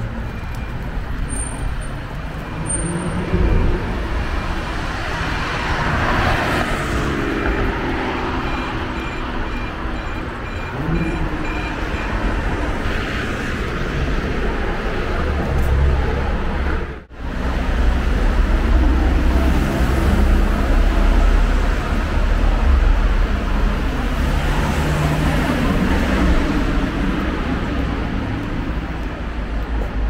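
City street traffic ambience: cars passing on the road with a steady hum of traffic. A faint high beep repeats evenly through the first half. The sound drops out briefly about halfway through, and a deeper low rumble follows.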